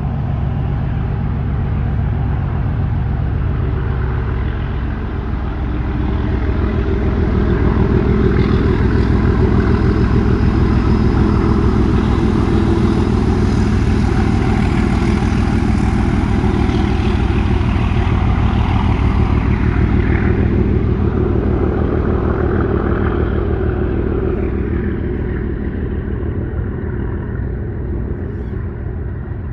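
British Rail Class 37 diesel locomotive 37608 'Andromeda' passing, its English Electric V12 engine working hard with a great noise. It grows louder a few seconds in, stays at its loudest through the middle, then fades away as it moves off.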